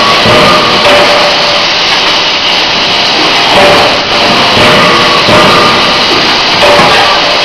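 Loud, steady din of running forging machinery, a dense mechanical noise with a few faint held tones and no distinct hammer blows.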